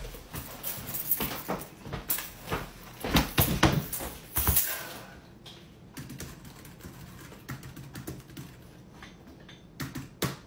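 Typing on a computer keyboard: rapid, irregular key clicks. A few louder knocks and thumps come in the first few seconds, and the typing then goes on more quietly.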